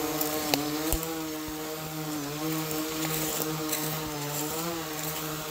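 Small quadcopter drone's propellers humming steadily as it flies low, the pitch wavering slightly, with a couple of sharp snaps about half a second and a second in.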